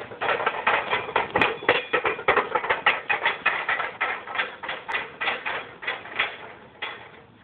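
Loaded farmer's walk handles rattling and clanking, several knocks a second in step with a fast carry, growing fainter over the last couple of seconds as they move away.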